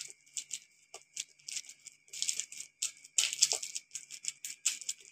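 Fingertips patting a ball of anarsa dough flat on a plastic carry-bag sheet sprinkled with poppy seeds: quick, irregular light taps.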